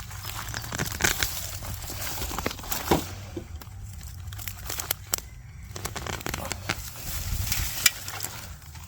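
Onion plants being pulled and handled: irregular rustling and crackling of the leaves and tops, with sharper crinkles now and then.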